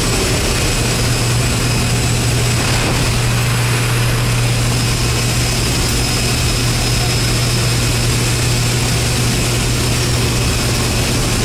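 Propeller aircraft engine droning steadily and loudly, heard from inside the cabin at the open jump door, with a constant rush of wind through the doorway.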